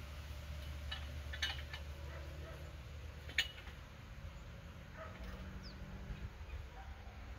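A few sharp clicks and knocks, the loudest one about three and a half seconds in, over a steady low rumble, with one short high chirp near the end.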